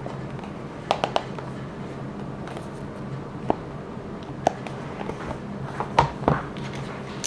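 Hands handling small plastic items and packaging: scattered sharp clicks and short rustles, a cluster about a second in and several more near the end, over a steady low hum.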